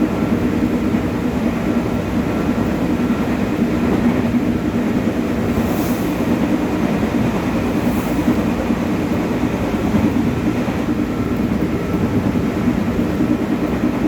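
Steady running noise heard inside a JR 205 series electric multiple unit motor car under way: a continuous rumble of wheels on rail with traction equipment hum and a faint steady whine.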